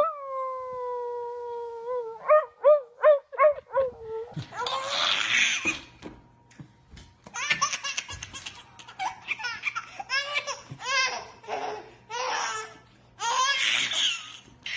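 A baby laughing hard in repeated bursts of belly laughs with short pauses between them. It starts with one long, falling, high-pitched cry and a quick run of short pitched yelps.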